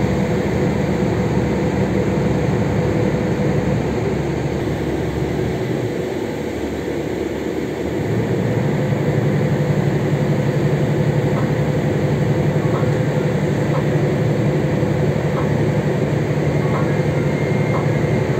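Ferry's engines running with a steady low drone. About halfway through, the note shifts and a new, even lower steady hum sets in.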